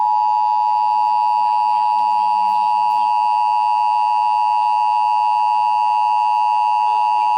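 Emergency Alert System two-tone attention signal (853 Hz and 960 Hz sounded together) played over a radio broadcast: one loud, steady, unchanging tone that cuts off abruptly near the end. It is the signal that opens an EAS alert, here the required monthly test message.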